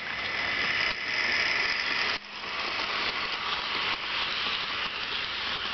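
HO scale model train with gondola cars rolling past on the track, making a steady, mostly high-pitched rolling rattle from the wheels on the rails. It drops briefly a little over two seconds in.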